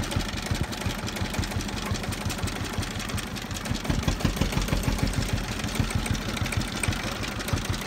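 Old single-cylinder stationary diesel engine running with a steady, rapid knocking chug, a little louder from about four seconds in.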